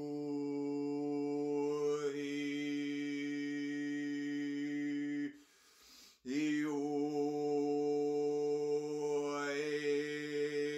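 A man chanting wordless 'light language' vocalisations, holding one low note on long drawn-out vowels that slowly change colour. The note breaks off for about a second halfway through to take a breath, then resumes on the same pitch.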